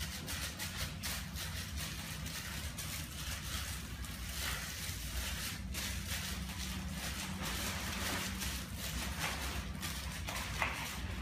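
Hands mixing minced meat on a plate, with faint soft squishing and scraping, over a steady low hum.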